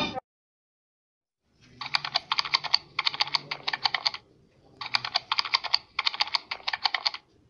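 Typing on a computer keyboard: quick runs of key clicks in two stretches of about two and a half seconds each, separated by a short pause, after about a second and a half of silence.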